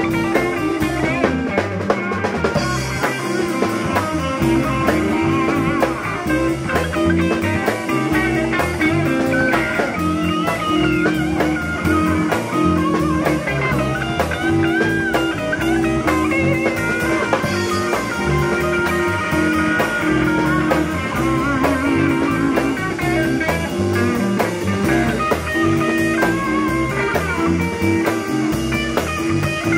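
Live rock band playing with no vocals: two electric guitars through combo amplifiers play lead lines with bent, wavering notes over a steady drum kit beat.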